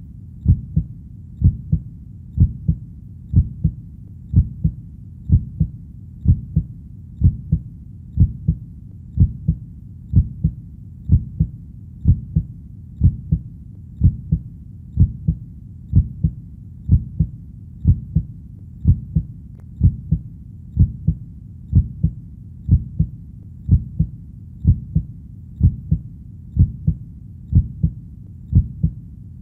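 Heartbeat: steady lub-dub double thumps, about one beat a second, over a low continuous hum.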